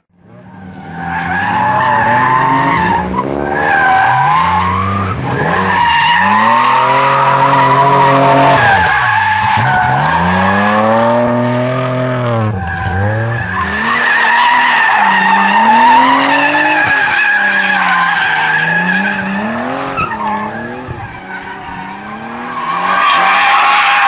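Drift cars sliding through corners: engines revving up and down again and again over a steady, high tyre squeal from the spinning rear tyres. There is a short break about halfway through.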